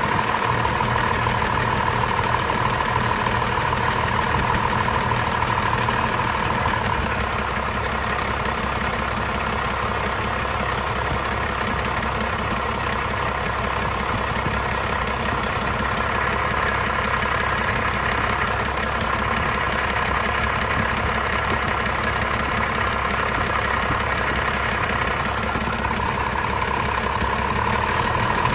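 1989 first-generation Cummins 12-valve 5.9 L inline-six turbo diesel idling steadily while warming up after a cold start. Its note settles a little lower about a quarter of the way in and picks up again near the end.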